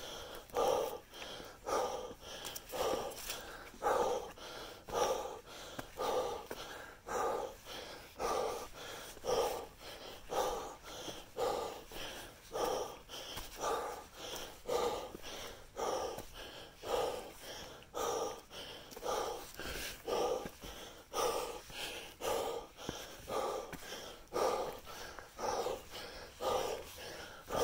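Heavy, rhythmic breathing of a hiker out of breath from climbing a steep rocky trail, about one and a half breaths a second, with footsteps scuffing on rock and dry leaves.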